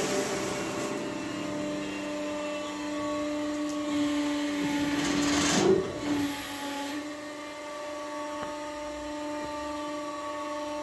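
Carpathian SMFA 100 horizontal sawmill running: a steady machine hum with a whine. About four to six seconds in, a louder rushing noise swells and then drops away.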